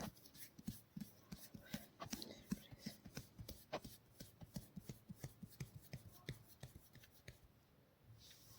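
Hands at work in a massage: a faint, quick run of short pats and taps, about four a second, that stops near the end.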